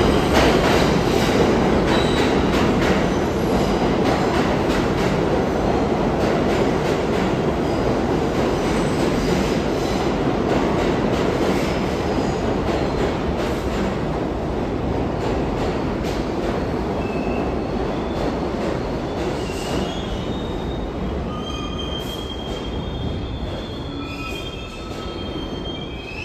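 Subway train running through an underground station: a steady rumble of wheels on rail that slowly fades, with thin, high wheel squeals in the second half.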